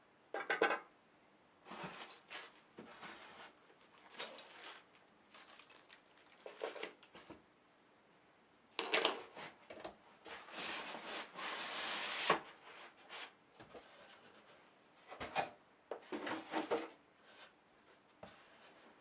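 Unpacking sounds: polystyrene foam packing, cardboard and plastic wrap rustling, scraping and knocking as a boxed scroll saw is handled and lifted out. They come in irregular bursts, with a longer stretch of rustling about halfway through.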